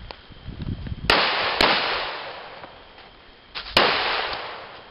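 Three pistol shots from a .45-calibre Glock: two in quick succession about half a second apart, then a third about two seconds later, each followed by a long fading echo. The pistol is being fired to break it in.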